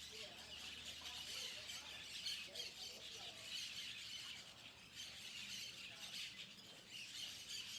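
Many birds chirping and calling at once, a dense, steady chorus of high chirps.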